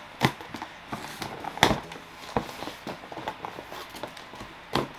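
Cardboard delivery box being handled and opened: scattered rustles and sharp knocks, the loudest about a second and a half in and another near the end.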